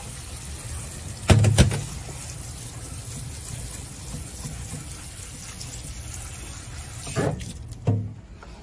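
Tap water running steadily onto Otaheite gooseberries in a stainless steel colander in a steel sink. Two loud knocks come about a second and a half in, and two more near the end.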